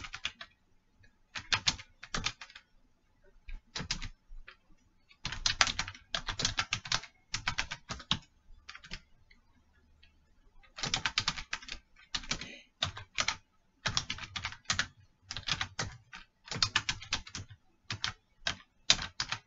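Typing on a computer keyboard: quick runs of keystrokes in bursts, broken by short pauses, with a longer pause of about two seconds midway.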